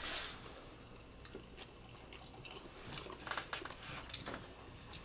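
Faint eating sounds: forks clicking and scraping in small bowls of macaroni and cheese, with soft chewing. A few short, scattered clicks.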